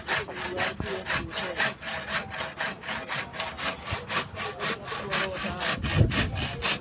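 Hand saw cutting through wood in quick, even back-and-forth strokes, about four or five a second.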